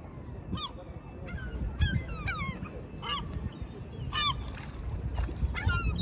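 A flock of gulls calling in a string of short, overlapping cries, some bending down in pitch, as they wheel over the water, with a low steady rumble underneath.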